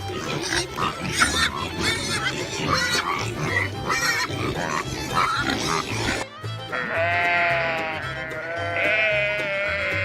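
Background music with a steady beat under farm animal calls: a dense jumble of animal noises for the first six seconds, then after a sudden cut, two long pitched calls, the second starting about nine seconds in.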